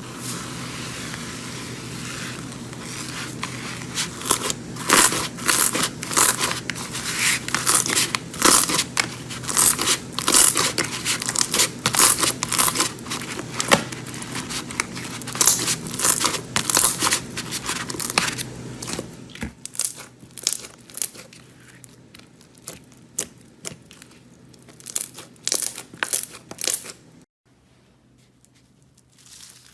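Slime being squeezed and worked by hand close to the microphone: a dense run of sharp crackling pops and clicks that thins out in the later part and stops abruptly near the end.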